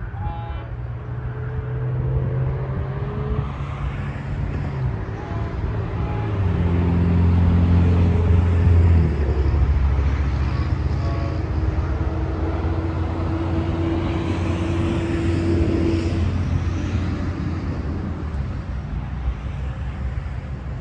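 A diesel locomotive engine running as a train goes by, loudest about seven to nine seconds in, with a steady tone holding for several seconds after that.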